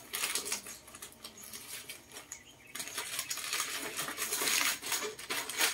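Glossy gift-wrapping paper crinkling and tearing as a present is unwrapped by hand: scattered crackles at first, turning into a denser, continuous rustle about halfway through.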